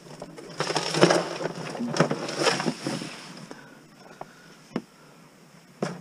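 Rustling and scraping as things are handled in a van's cargo area, loudest in the first few seconds, followed by two sharp knocks near the end.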